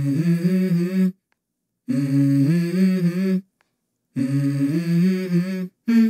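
Hummed vocal melody opening a song: three phrases of about a second and a half each, stepping between a few low notes, with short silent gaps between them and the start of a fourth right at the end.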